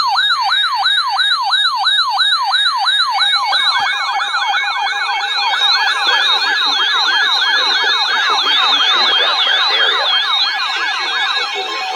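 Emergency alert attention signal: a siren-like tone that drops in pitch over and over, about two and a half times a second. About three and a half seconds in, a second copy of the signal joins out of step, so two overlapping wails sound together.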